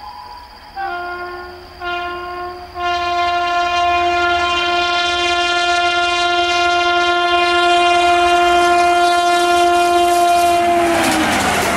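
Indian Railways electric locomotive sounding its horn as it approaches: two short toots, then one long steady blast that drops in pitch as the locomotive passes close by. The horn gives way to the rush and rattle of the passing coaches near the end.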